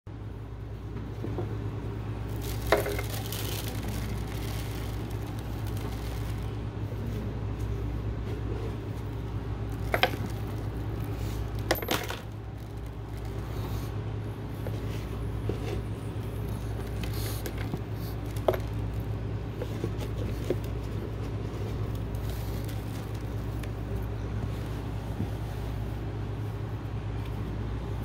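Debris tipped onto a hollow plastic star: four sharp clicks and taps as small hard bits such as seeds and a penny land, over a steady low hum.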